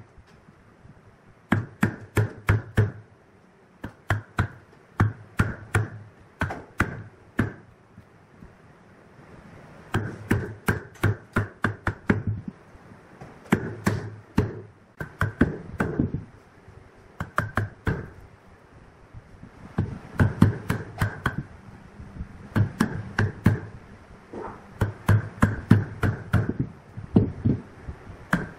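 A wood chisel being driven down into a wooden block to hollow out carved recesses. Quick sharp knocks come in bursts of about four to eight, several a second, with short pauses between bursts.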